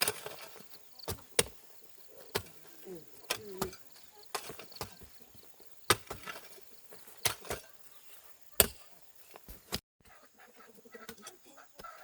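Irregular sharp knocks of a hand tool striking, about one a second, stopping about ten seconds in.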